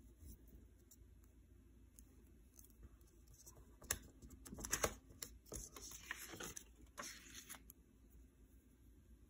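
Sheets of paper being handled and rustled on a desk, in a few short bursts with some sharp clicks about halfway through.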